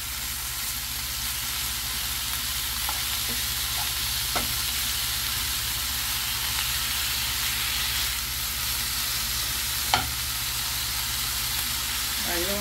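Chopped raw bacon frying in a nonstick pan, a steady sizzle that grows a little louder as it gets going. A metal slotted spoon stirs it, clicking against the pan a few times; the sharpest click comes about ten seconds in. The bacon is just beginning to give up its fat.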